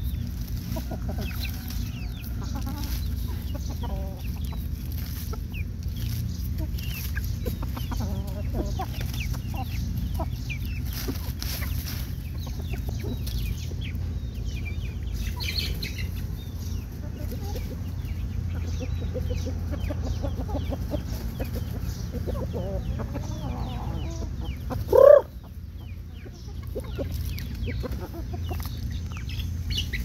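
Roosters and hens clucking quietly while foraging, with faint pecking and rustling in dry leaves, and one loud, short squawk near the end.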